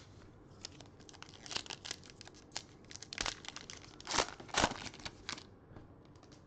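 A foil trading-card pack wrapper being crinkled and torn open by hand, in a run of irregular crackles with the loudest rips about four seconds in.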